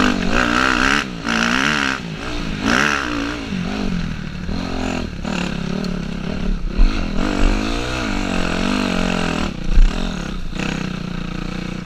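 Dirt bike engine revving up and down as the rider works the throttle on a rough wooded trail, heard from the rider's helmet. There are two sharp knocks, one about seven seconds in and a louder one near ten seconds.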